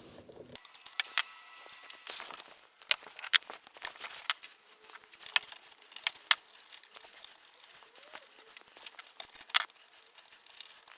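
Sped-up workshop sound of hand tools and lawnmower parts being handled: an irregular run of sharp clicks and clinks, thin and high with no low end.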